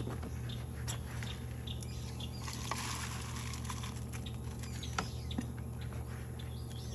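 Outdoor garden sound: scattered small clicks and taps with a rustle about halfway through, and faint bird chirps over a steady low hum.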